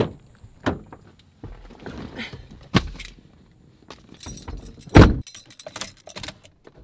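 Getting into a car: sharp clicks at the door handle, a seatbelt being pulled across, and a key ring jangling as a key goes into the ignition. One loud, deep thump about five seconds in stands out above the rest.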